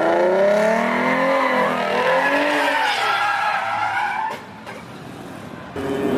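Ford Mustang sliding sideways: its engine revving up and down with tyres squealing. About four seconds in the sound drops away for a second and a half, then the engine comes back loud near the end.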